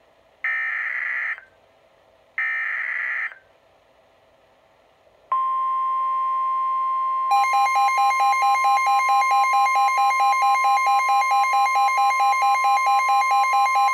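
NOAA Weather Radio alert sequence: the last two short bursts of the SAME digital header, then the steady 1050 Hz warning alert tone, joined about two seconds later by the Midland WR-120 weather radio's own alarm beeping rapidly, about four beeps a second. Together they signal an incoming warning, here a flash flood warning.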